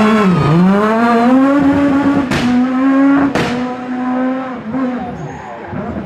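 Renault Clio rally car engine pulling hard out of a tight bend. The pitch dips, then climbs and holds, with two sharp cracks about a second apart. The engine then fades as the car drives away.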